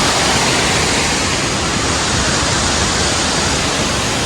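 Waterfall crashing into its pool: a loud, steady rush of falling water.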